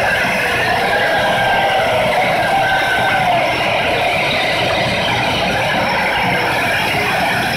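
Three tezutsu hanabi, hand-held bamboo-tube fireworks, jetting sparks at once with a loud, steady rushing hiss.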